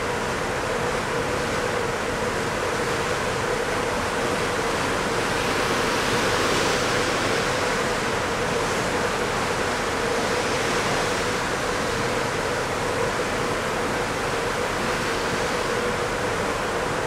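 Steady rush of wind and sea with a steady hum running through it.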